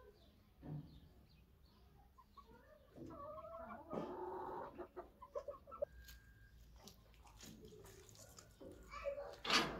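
Domestic chickens clucking, in short scattered calls that grow louder about three seconds in and again near the end.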